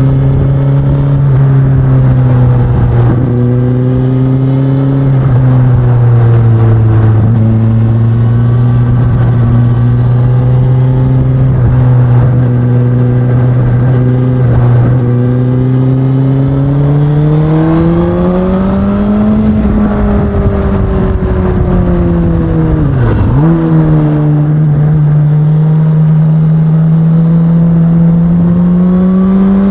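2019 Suzuki Katana's 999 cc inline-four running with the stock exhaust at a steady pitch. The revs climb partway through, drop sharply and briefly, then rise slowly again.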